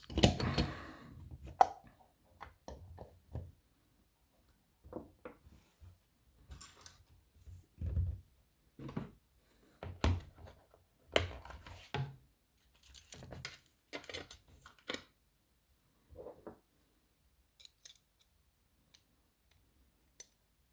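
Irregular small metal clicks, taps and rattles of a BKS 88 lock cylinder and tools being handled as the picked lock is taken apart, the sounds thinning out over the last few seconds.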